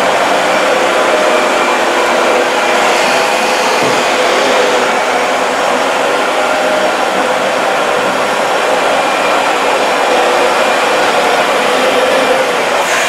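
Dyson DC40 MK II upright vacuum cleaner running steadily while vacuuming a rug: a motor whine over rushing air.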